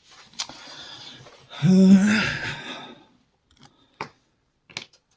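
Handling noises on a workbench: a sharp click, rustling and scraping as things are moved, then several separate light clicks.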